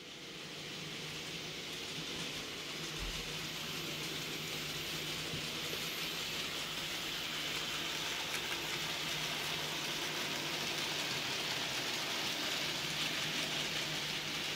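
N gauge model locomotive and wagons running on the layout's track: a steady small-motor hum under a hiss of wheels on rail, growing louder over the first two seconds.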